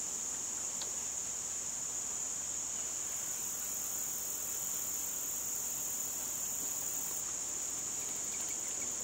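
Steady outdoor chorus of crickets and other insects, a continuous high-pitched trill. A second, higher insect note joins about three seconds in and drops out about seven seconds in.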